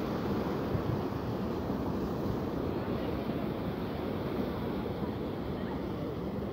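River water rushing steadily as it pours over a concrete weir edge and runs through rocky shallows.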